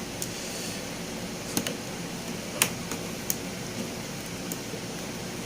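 A few sharp plastic clicks, the loudest about two and a half seconds in, as the plastic base cover of a Lenovo S20-30 laptop is pried loose and its clips let go, over a steady background hiss.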